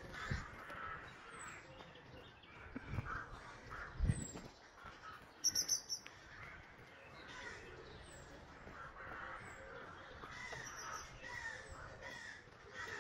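Faint birds calling, with short high chirps and a quick run of high chirps about five and a half seconds in. A few low thumps come in the first four seconds.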